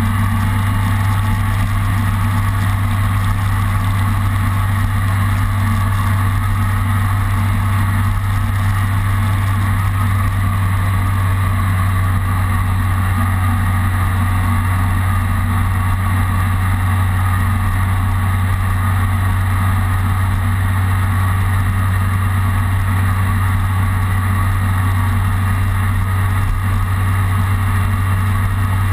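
Kawasaki ZRX motorcycle's inline-four engine running at a steady pitch while cruising, its low note holding level throughout.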